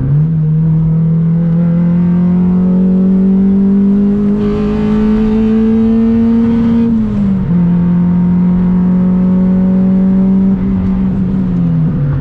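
A naturally aspirated 1.6-litre Mitsubishi Lancer engine pulling hard under acceleration, heard from inside the cabin. Its pitch climbs steadily, drops at a gear change about seven seconds in, holds, then falls again near the end.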